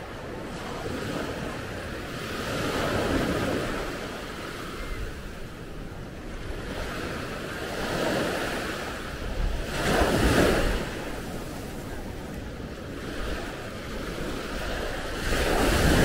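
Ocean surf breaking on a beach, the wash swelling in several surges, the loudest about two-thirds of the way through and at the end. Wind rumbles on the microphone underneath.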